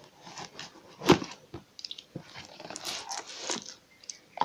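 Packing material being handled and pulled apart: a sharp knock about a second in, then irregular crinkling and rustling.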